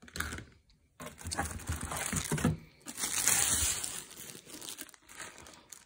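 Plastic packaging crinkling as vacuum cleaner wands are unwrapped and handled. It starts about a second in and is loudest around three seconds in.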